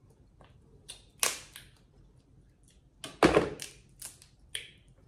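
Boiled Dungeness crab shell being cracked and snapped apart by hand: a sharp crack a little over a second in, then a louder cluster of cracks and crunches about three seconds in, followed by a couple of smaller snaps.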